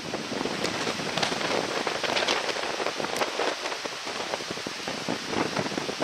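Steady rushing of the flood-swollen Shimanto River, a muddy torrent after a typhoon, overlaid with crackling wind buffeting the microphone.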